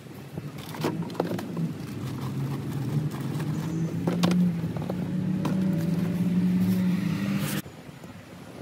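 A motor vehicle's engine running nearby, its low hum shifting in pitch and growing louder, with a few clicks and knocks of items being handled; it cuts off suddenly near the end.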